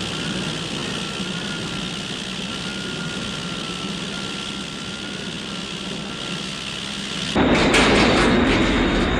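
Jet-engine drone, a steady hissing roar with a faint high whine wavering above it. About seven seconds in it jumps suddenly to a louder, rougher roar.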